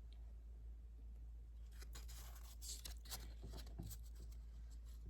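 Faint rustling and light clicks of paper pages being handled and turned, bunched from about two seconds in, over a low steady hum.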